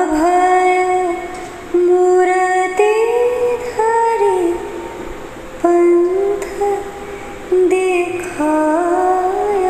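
A woman singing a slow melody, holding long notes that bend and glide, in phrases separated by short breaths.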